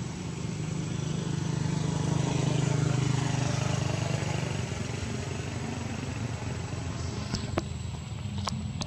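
A motor vehicle's engine passing: a low hum that swells over a couple of seconds and then fades. A few sharp clicks come near the end.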